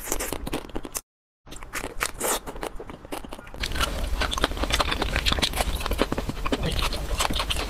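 Close-miked eating sounds of biting and crunching into ice cream bars: a run of crackly bites that breaks off for a moment about a second in, then grows denser and steadier from about halfway through.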